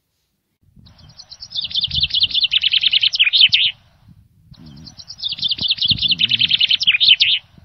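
A songbird sings twice, each song a rapid trill of about three seconds that drops in pitch and ends in a flourish, over a faint low rumble.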